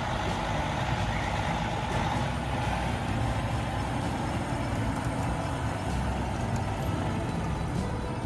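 Heavy logging truck's engine running steadily, a continuous low rumble.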